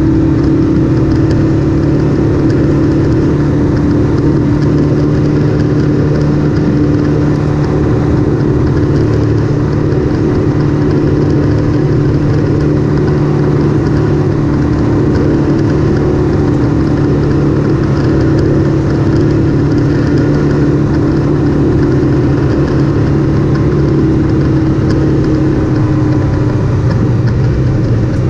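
Off-road vehicle engine running at a steady, even pitch while cruising along the trail, under a constant rush of noise.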